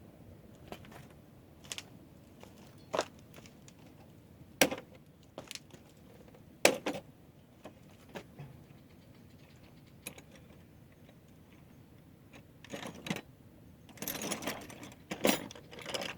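Scattered sharp clicks and knocks, several seconds apart, then a quick rattling cluster of them near the end, like objects being handled and set down.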